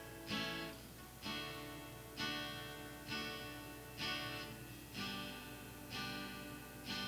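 Quiet background music: a guitar strummed about once a second, each chord ringing out and fading.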